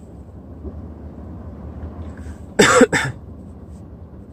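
A person coughs once, briefly and loudly, about two and a half seconds in, over a steady low hum.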